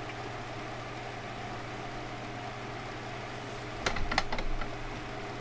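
Steady mechanical hum, with a short clatter of clicks and knocks about four seconds in from hand work on the outboard lower unit as its gear shift is worked between positions.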